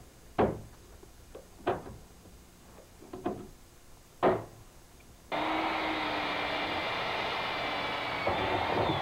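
Hand pop-rivet gun setting rivets in a sheet-metal patch: four sharp snaps about a second apart as the rivet stems break off. A little past halfway, a steady rushing noise with a low hum starts abruptly, a shop vacuum running.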